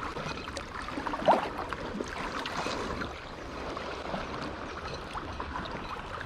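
Water splashing and lapping as a hooked flathead is drawn in to the bank, with one sharper, louder splash a little over a second in.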